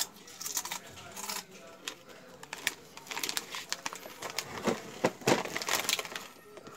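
Crunching as a mouthful of potato chips is chewed, then a run of crackles from about three seconds in as the plastic Lay's chip packet is handled and crinkled.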